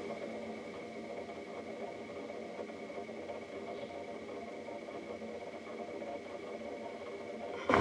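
Faint steady hiss with a low hum under it, and a sudden knock right at the end.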